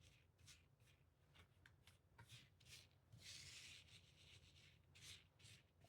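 Faint brushing: a rhinestone brush sweeping hotfix rhinestones across a template so they drop into its holes, in short repeated strokes with one longer stroke about three seconds in.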